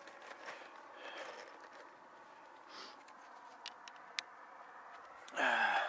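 Faint scraping with a few scattered sharp clicks, then a short man's vocal sound with falling pitch near the end.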